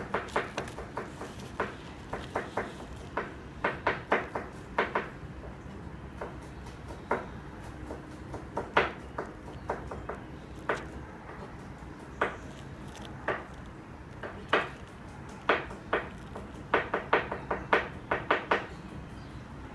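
A clear plastic protractor being shifted and lined up by hand on paper over a desk, giving irregular light clicks and taps, some in quick runs of several.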